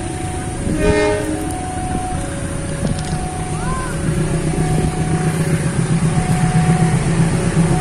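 Diesel-hauled passenger train approaching: a short toot of the locomotive's horn about a second in, then the engine rumble growing steadily louder as it nears. An alternating two-note warning tone repeats throughout.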